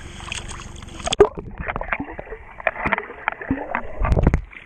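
Water splashing at a swimming pool's surface, then the microphone goes under with a knock about a second in, and everything turns muffled: sloshing and knocks from a child swimming, with a heavy low rumble near the end.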